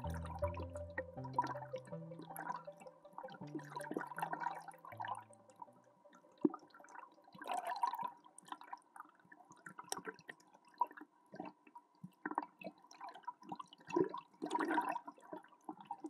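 Flowing mountain-stream water recorded underwater, heard faintly as irregular gurgling and bubbling with small clicks.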